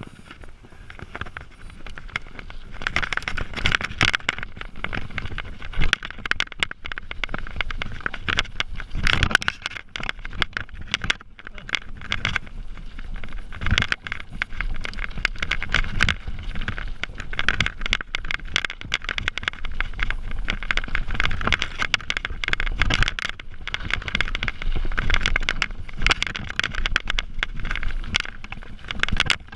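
Mountain bike riding fast downhill on a dirt and gravel trail: tyres rolling over loose stones with constant rattling and knocks from the bike, building up over the first few seconds as it gathers speed. Wind buffets the helmet camera's microphone underneath.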